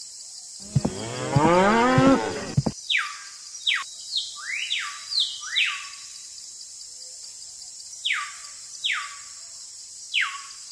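A cow moos once, a long call of about two seconds near the start. It is followed by a series of short, quick chirps that each sweep downward in pitch, several close together, then a few more spaced out toward the end.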